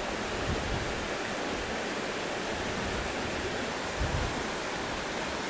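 The River Calder running over rocks and shallow rapids: a steady rushing of water.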